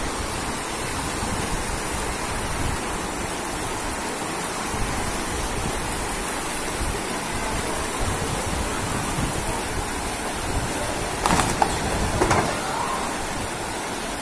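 Fast floodwater rushing down a street, a steady loud rush of water, with two brief louder sounds about eleven and twelve seconds in.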